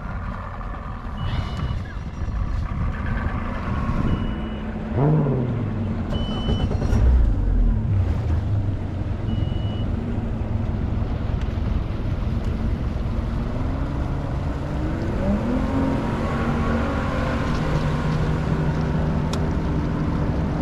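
Bass boat outboard motor running under way, its pitch dipping and climbing about five seconds in, then rising again and settling at a steady speed, over wind and water noise. Four short high beeps sound in the first half.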